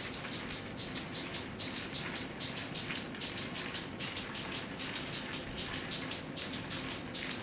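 Four-cylinder LEGO Technic air-motor locomotive running on liquid-nitrogen gas: its cylinders exhaust in a rapid, even chuffing hiss, about six puffs a second, with the light clatter of the train on plastic track underneath.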